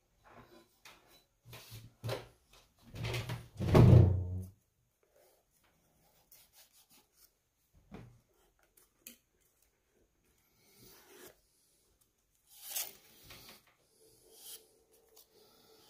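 Handling noises from working on the speaker parts: scattered clicks and rubbing, with a louder scrape and deep thump about three to four seconds in, then lighter clicks and rubs.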